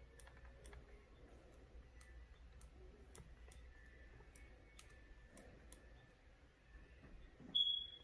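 Wooden stir stick faintly clicking against the sides of a clear plastic cup while resin is stirred, about two clicks a second. A brief high squeak near the end is the loudest sound.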